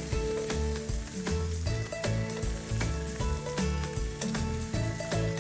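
Fish, potatoes and bacon frying and sizzling on a large outdoor griddle pan, with a metal spoon scraping and tapping the pan as the food is served. Background music with a steady beat plays under it.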